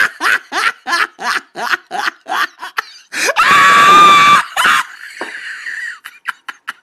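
Hysterical laughter: rapid, evenly spaced bursts of about three a second, then a long high-pitched shrieking laugh about three seconds in, trailing off into fainter breathy wheezing gasps.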